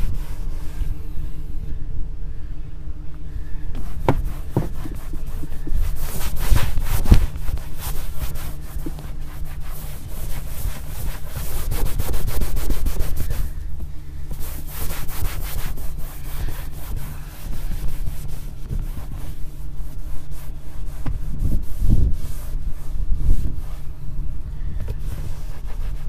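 Cloth pad rubbing and wiping back and forth over a leather car seat in uneven strokes, working leather conditioner into the leather.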